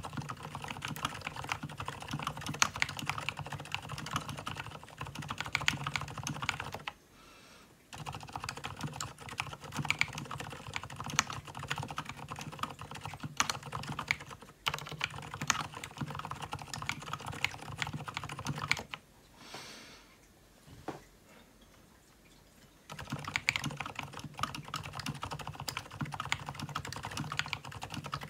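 Typing on an Emstone Groove T87A tenkeyless mechanical keyboard fitted with Gateron silent brown switches: a quick, dense run of keystrokes. It pauses for about a second around seven seconds in and for a few seconds around twenty seconds in.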